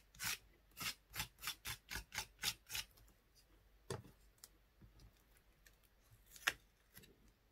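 Palette knife scraping texture paste across a stencil on paper, about three quick strokes a second for roughly three seconds. Then a single knock as the knife is set down, and a short crackle as the stencil is peeled off the sheet.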